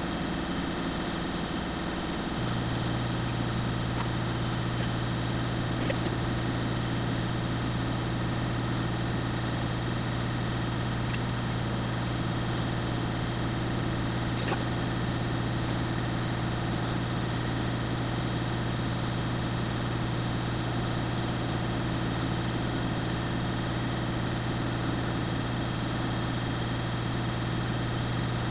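Vertical milling machine running, its end mill cutting an aluminium block, with a steady hum throughout. A deeper hum comes in about two seconds in and holds, with a few faint clicks of chips along the way.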